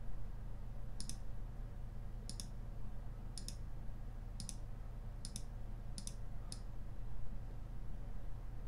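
Computer mouse buttons clicking about seven times at uneven intervals during the first six and a half seconds, each click a quick press-and-release pair, over a steady low hum.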